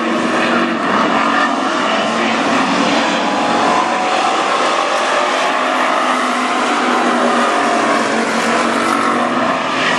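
A pack of WISSOTA street stock race cars' V8 engines running hard at racing speed on a dirt oval, a loud, steady, continuous engine noise.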